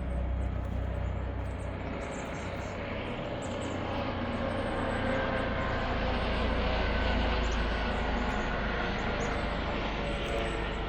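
Distant engine noise, a steady rushing rumble that slowly swells toward the middle and eases off again, as of something passing by.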